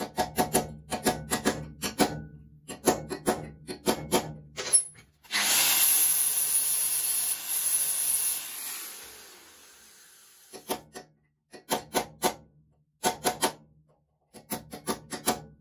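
Quick back-and-forth scraping strokes of a small hand file deburring the bolt holes of an aluminium inlet-manifold flange clamped to a steel table. About five seconds in, a power tool starts suddenly, runs for about three seconds and winds down; then the filing strokes resume.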